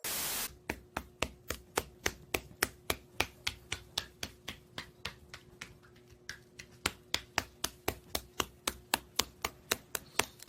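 A steady series of sharp clicks or taps, about four a second, with a pause of about a second just past the middle, over a faint steady hum.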